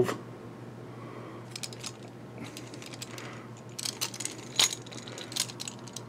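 Light clicks and taps of plastic and metal parts being handled as a 3D-printed knob is turned on a magic arm camera mount's articulating joints. The clicks come scattered, a few about a second and a half in and more in a busy run near the middle to the end.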